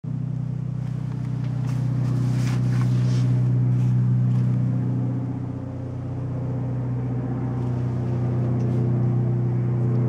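Helicopter flying low overhead: a steady, loud low engine-and-rotor drone that swells over the first few seconds, dips briefly around the middle, then builds again.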